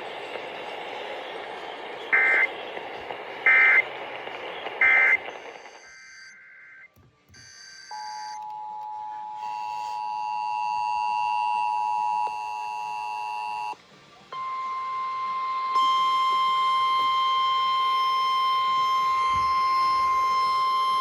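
Emergency Alert System test received over a hissy broadcast feed: three short beeps over static, then a few brief chirping data bursts, then the EAS two-tone attention signal for about five seconds. A single steady alert tone follows and holds to the end.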